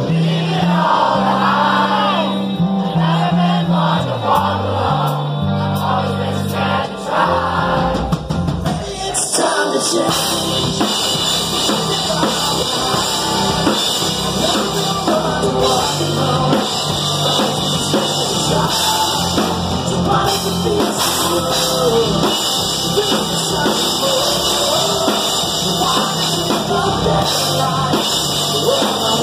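Live rock band playing with a sung vocal. A low bass line carries the song under the voice at first; about nine seconds in, the drums, cymbals and guitars come in and the full band plays on.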